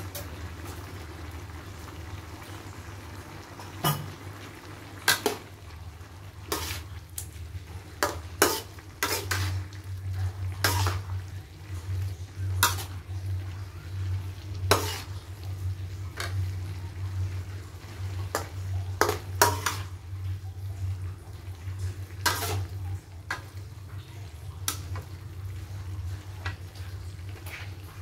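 Metal utensils scraping and clacking against a steel wok while vegetables are stir-fried, in irregular knocks every second or two over a low steady hum.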